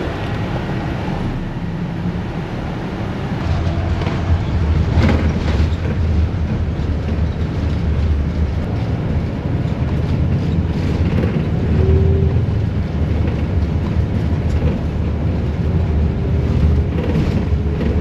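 Steady low rumble of a moving coach bus, its engine and road noise heard from inside the cabin. It grows louder about three seconds in, with a few light knocks and rattles.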